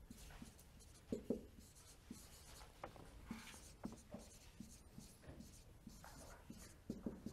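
Marker pen writing on a whiteboard: faint short squeaks and scratches of the pen strokes, a little louder about a second in and again near the end.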